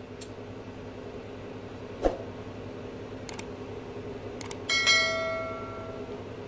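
A bell ding with a ringing tail that fades over about a second and a half, just after two light clicks: the sound effect of a subscribe-button animation. Under it, a steady room hum and a single soft thump about two seconds in.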